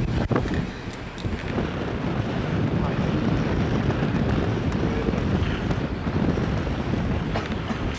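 Wind buffeting the microphone over a steady rush of sea and ship noise aboard a ferry under way, with a few light clicks in the first second or so. No ship's whistle is heard.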